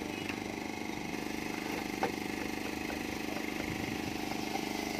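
A small engine running steadily at idle, with one short click about two seconds in.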